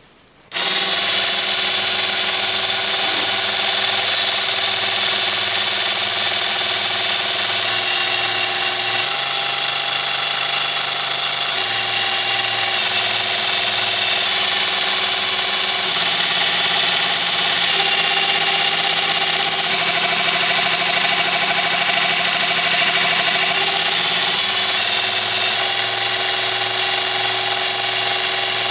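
Miniature belt sander's small 12–24 V DC motor and abrasive belt running steadily with a high hiss. Its low tones change in steps several times.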